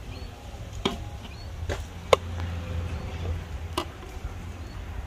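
Metal serving spoon knocking against the rim of a metal cooking pot and a ceramic plate while cooked rice is dished out: four sharp clinks, the loudest about two seconds in, ringing briefly.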